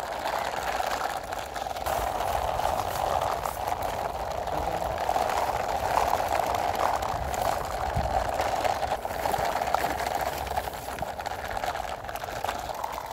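Hard plastic wheels of toy dump trucks rolling over rough concrete paving: a steady, gritty rolling noise.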